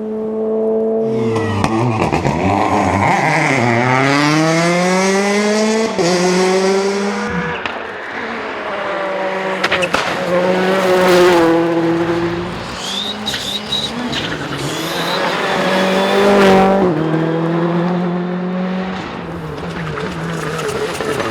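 Rally car engines at full attack on a special stage, revving hard, the pitch dropping and then climbing steeply again several times as the cars brake, change gear and accelerate, with some tyre squeal.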